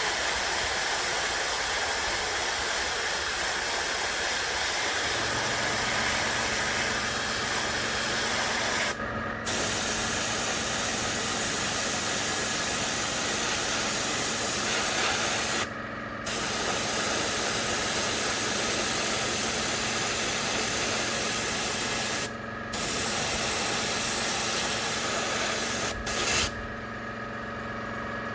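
Airbrush spraying paint in long steady hisses, cut briefly three times and stopping shortly before the end. A steady motor hum comes in about five seconds in and is left on its own once the spraying stops.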